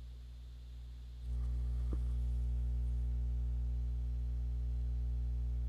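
Steady electrical mains hum with low buzzy overtones, stepping up louder about a second in and then holding steady.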